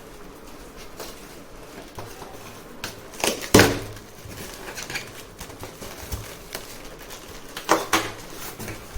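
Parts and packaging being handled as they are taken out of a box: scattered light clatter and knocks. The loudest knocks come about three and a half seconds in, and two more sit near the end.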